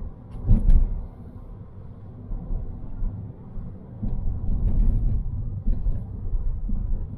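Low, uneven rumble of a car on the move, with a louder thump about half a second in.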